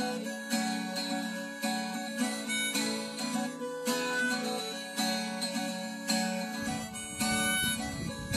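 Acoustic guitar strummed with a harmonica playing the melody over it: the instrumental intro of a folk song, before the singing. A low rumble comes in about six and a half seconds in.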